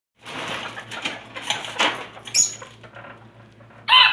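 Rustling and scratching with a few sharp knocks, fading after about two and a half seconds; right at the end a bantam chicken breaks into a loud call.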